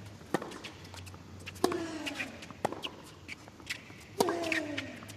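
Tennis ball struck back and forth by racquets in a baseline rally: a sharp pop every second or so. Two of the shots, about a second and a half in and again near the end, carry a short grunt from a player that falls in pitch.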